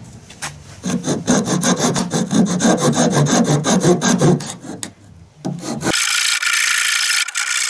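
Hand file rasping across a wooden block in quick short strokes, shaping its curve, from about a second in until nearly five seconds. About six seconds in a steady high hiss starts abruptly and carries on.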